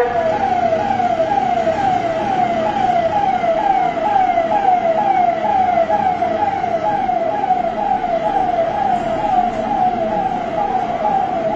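Police vehicle siren sounding in a fast repeating pattern, each cycle a quick downward sweep in pitch, about three a second.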